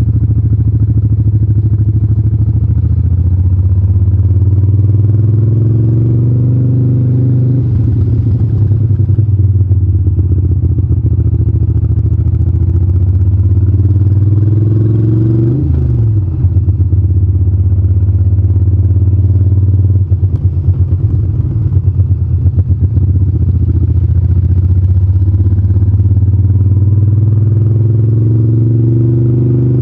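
Moto Guzzi California 1400 Custom's 1380 cc transverse V-twin running under way, its pitch rising and falling with the throttle. The note climbs twice and drops sharply about halfway through, then holds steady before rising again near the end.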